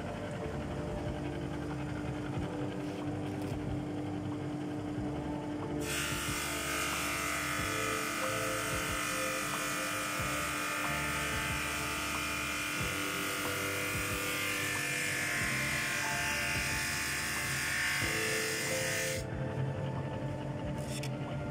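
JIB 21106 drum sander and its dust collector running steadily, a hum with several fixed tones. About six seconds in a plywood panel goes under the sanding drum, adding a loud, even abrasive hiss that stops abruptly about thirteen seconds later when the panel clears the drum.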